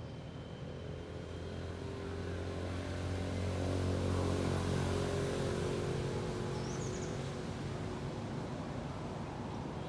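A motor vehicle driving past: its engine grows louder to a peak about four seconds in, then fades away.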